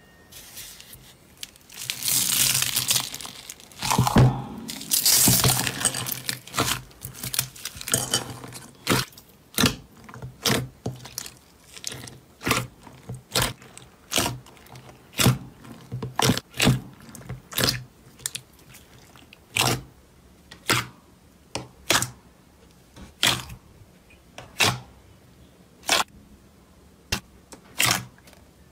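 Hands working slime: a crackling crunch as foam beads are pressed into the slime, then a run of short sharp pops, about one a second, as fingers poke and press the slime and squeeze out air pockets.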